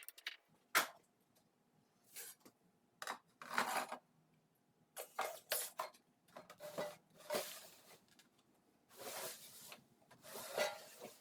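Bird feeder parts being handled during disassembly: a string of irregular short scrapes and rubs with a sharp click about a second in.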